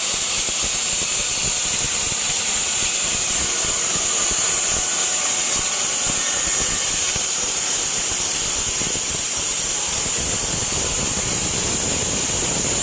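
Band sawmill running, a steady high-pitched hiss with a low rumble beneath it.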